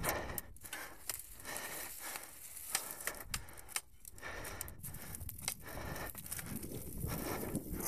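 Mountain bike riding over a leaf-covered dirt trail: tyres crunching and rustling through dry fallen leaves, with frequent clicks and rattles from the bike over bumps.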